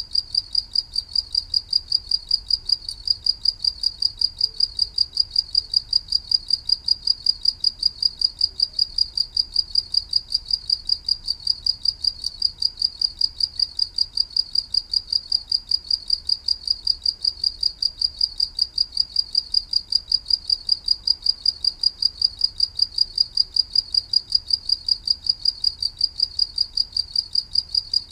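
Cricket chirping: a steady, evenly spaced high-pitched chirp repeating several times a second without a break.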